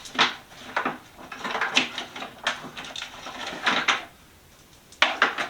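Small hard objects being handled on a workbench: a series of irregular clicks, knocks and short rattles, with a quieter pause about four seconds in before a few more clicks near the end.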